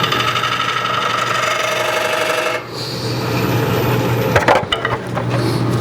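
Wood lathe running with a gouge cutting into a spinning green-wood bowl blank, shaping the tenon: a steady scraping cut for about two and a half seconds, then the tool comes off and the lathe hums on. A few sharp knocks near the end.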